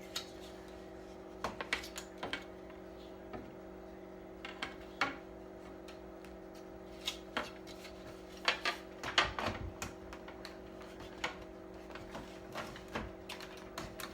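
Irregular clicks, taps and knocks of TV parts being handled and fitted back together while the set is reassembled, with a busier run of louder knocks a little past the middle. A steady low hum runs underneath.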